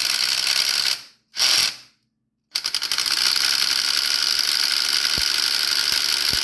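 Ratchet wrench clicking rapidly as it is worked on a spark plug socket, stopping about a second in, a short burst, a pause of about a second, then a long steady run of clicking.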